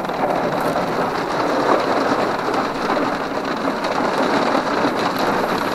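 Torrential rain and hail pelting a car's roof and windows, heard from inside the car as a dense, steady drumming.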